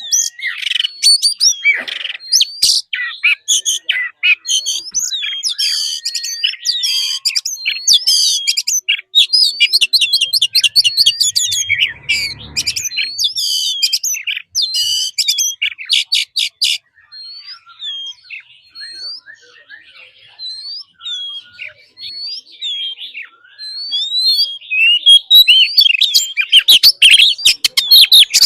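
Oriental magpie-robin singing a loud, varied song of whistled notes, sweeping chirps and rapid trills; the song thins to scattered notes just past the halfway point, then picks up again near the end.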